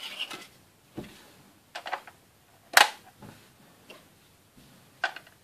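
Hard plastic clicks and taps as Playmobil toy mattresses are laid and pressed onto the camper's plastic bunk frame, a handful of separate clicks with the sharpest and loudest one just under three seconds in.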